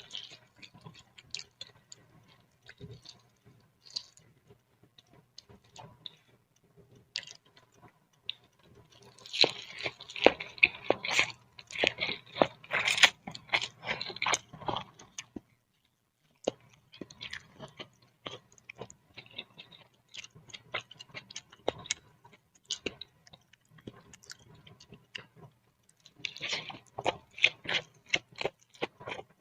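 Close-miked eating of boiled instant noodles in broth with spinach and egg: wet chewing and small mouth clicks, with a louder, busier run of eating sounds about ten to fifteen seconds in and again near the end.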